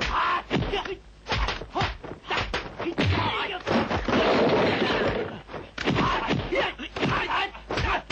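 Kung fu film fight sound effects: a fast run of punch and kick thuds and whacks, with yells among them.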